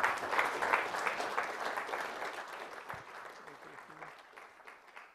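Audience applauding, loudest at the start and dying away over about four seconds.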